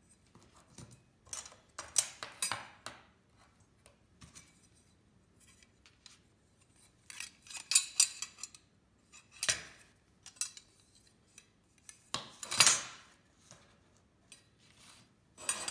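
Metal chassis frame rails of a Tamiya CR-01 RC crawler kit clinking and scraping against each other and being set down on a tabletop, in several irregular clusters, the loudest about two seconds in and again around twelve to thirteen seconds.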